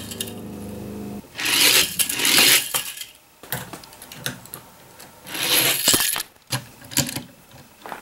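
A small die-cast Hot Wheels car rattling as it runs down an orange plastic track and clattering off the end, heard a few times in rough bursts about a second long, with sharp handling clicks near the end.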